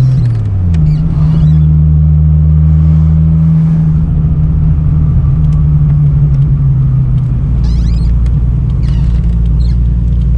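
Holden VL Turbo Commodore's 3.0-litre turbocharged straight-six running under way, a steady low engine hum. The pitch dips briefly near the start, then holds steady.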